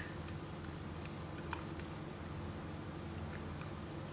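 Hands sloshing through potato sticks in a steel bowl of water, giving small wet clicks and squelches over a steady low hum.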